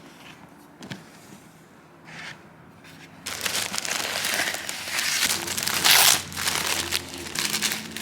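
Packaging being unwrapped, crinkling and rustling, starting about three seconds in and loudest around six seconds.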